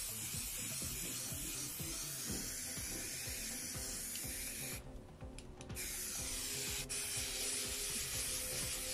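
Aerosol can of red primer spraying onto sheet steel, a steady hiss that stops for about a second midway and then starts again, over background music.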